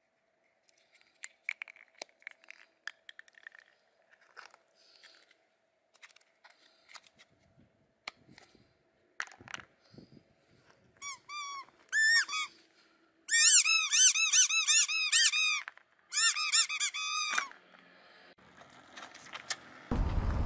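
Soft clicks and taps of plastic toy crocodiles being set down and moved on asphalt. Then loud, high squeaking comes in fast trains, each squeak rising and falling in pitch, in four bursts over several seconds. Near the end a car tyre starts rolling with a low rumble.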